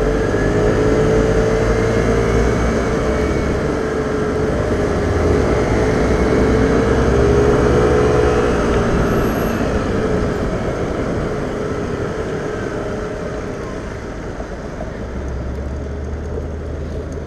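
Vespa scooter's engine running on the move in traffic, with a whining note that rises and falls gently with speed and fades after about ten seconds as the overall level eases off, over a steady low rumble.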